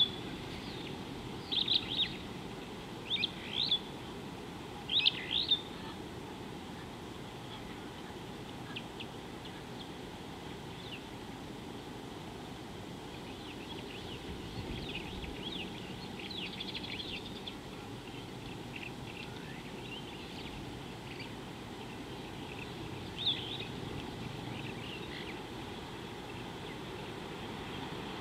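Wild birds calling: short, sharp high chirps, mostly in pairs, every second or so for the first six seconds, then scattered fainter chirps, over a steady low background hiss.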